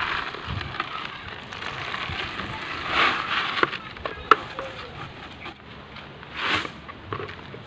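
Granular planting medium being poured from a container into a bonsai pot, a crackly pattering of falling grains with scattered small clicks. It comes in three louder pours: one at the start, one about three seconds in and one about six and a half seconds in.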